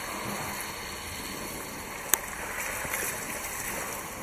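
Water spraying from a garden hose onto a baby elephant and spattering into a paddling pool: a steady hiss of running water. A single sharp click about two seconds in.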